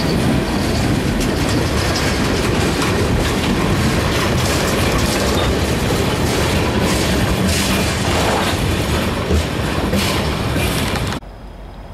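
Freight train of tank cars rolling past on the near track: a steady rumble with wheels clicking over rail joints. The sound cuts off abruptly near the end.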